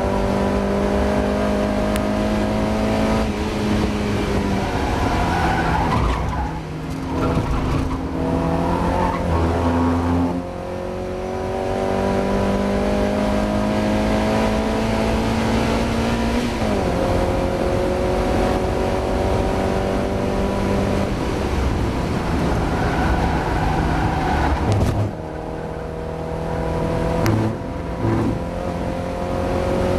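Mazda MX-5 race car engine running hard at racing speed, its pitch climbing steadily through each gear and dropping back at gear changes and lifts several times.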